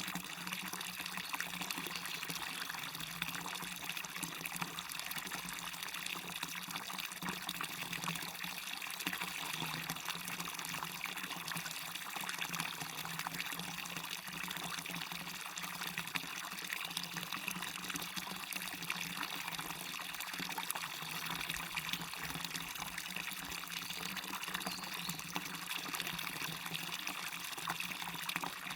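Waterfall on a stream: water falling and splashing steadily, without a break.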